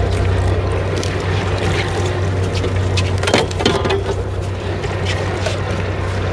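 Fishing boat's engine running steadily with a low hum, with a few sharp knocks and a brief clatter a little past the middle.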